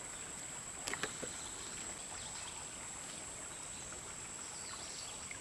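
Steady high-pitched insect drone, crickets, over a faint even hiss of outdoor background noise, with a short click about a second in.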